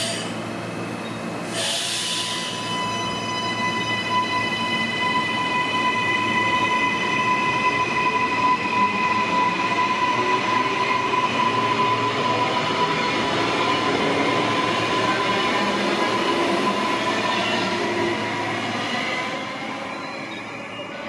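Queensland Rail electric multiple-unit train pulling out along the platform. A short hiss of air comes about two seconds in, then a steady high whine over the rumble of the wheels, which grows louder and fades away near the end.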